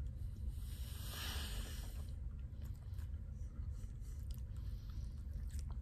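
Faint chewing and mouth noises of a person eating a sauce-coated chicken wing, with a few small clicks and a soft hiss-like sound early on.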